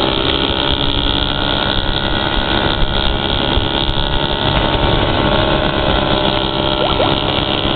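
Honda Foreman 500 ATV's single-cylinder engine running steadily while cruising on a paved road, with no change in speed.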